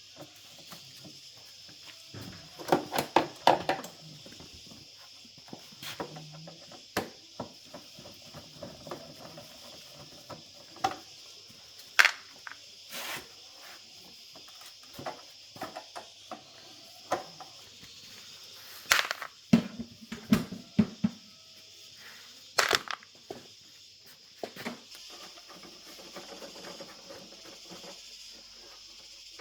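Irregular clicks, knocks and clatters of hard objects being handled, with a few louder knocks among them, over a steady faint high hiss.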